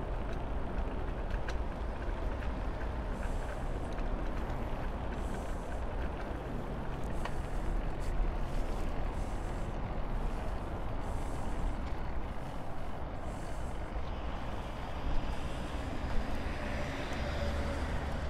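Steady rush of wind and road noise while cycling, with a low rumble and motor traffic going by. Near the end a faint whine rises in pitch and there are two short sharp peaks.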